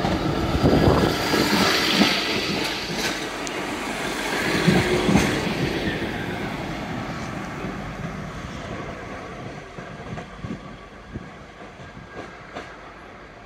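Northern Class 150 diesel multiple unit pulling away and passing close, its diesel engines running under power and its wheels knocking over rail joints and points. It is loudest in the first few seconds, then fades steadily as the train moves off.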